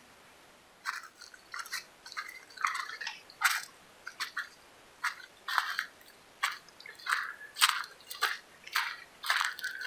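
A walker's footsteps crunching on a dry, leaf-littered dirt trail, starting about a second in and going on at an even walking pace of one to two steps a second.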